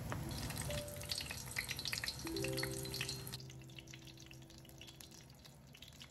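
Food deep-frying in hot oil in a small pan, a dense sizzling crackle for the first three seconds or so that then drops suddenly to a faint bubbling. Soft background piano music plays throughout.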